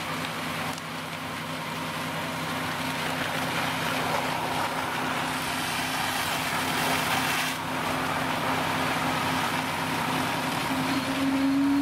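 Fire engine's diesel engine running steadily at pumping speed while its deck gun flows water onto the fire, over a steady rush of water and fire. A tone rises slightly near the end.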